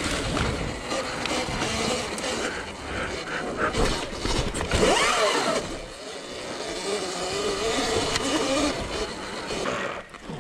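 Sur-Ron electric dirt bike being ridden off-road: the electric motor whines, its pitch wavering with speed, and it rises and falls once with a throttle blip about halfway through. The whine sits under steady wind rush and rattling on the microphone.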